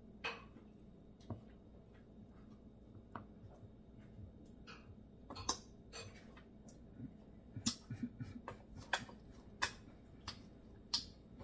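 Scattered light clicks and taps, about fifteen of them, sparse at first and coming closer together after about five seconds, over a faint steady background.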